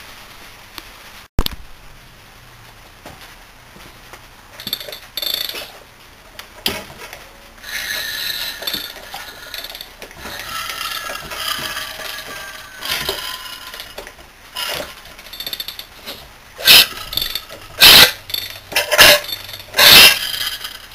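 A bare Subaru EA82 flat-four engine being cranked over on the bench with mechanical whirring and clatter. Near the end come several loud hissing bursts about a second apart, as water left in the cylinders is blown out past a stuck exhaust valve.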